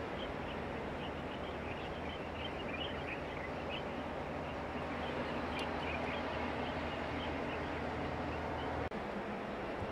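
Steady low engine hum under a wash of outdoor noise, with small birds chirping over it through the first half or so. The sound cuts out for an instant near the end.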